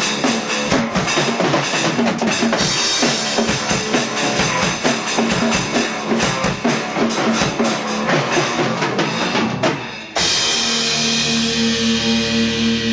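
Instrumental rock music: a drum kit plays a busy beat with band backing. About ten seconds in, the drums stop and a chord is held and left to ring.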